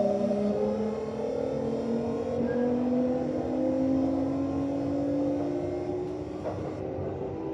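VVVF inverter of a Kintetsu 1026 series train whining as the train accelerates, several tones rising slowly in pitch over running rumble. Mixed into the normal inverter tone is a growling, raspy noise in the asynchronous range, which the uploader takes for an abnormal, deteriorated inverter.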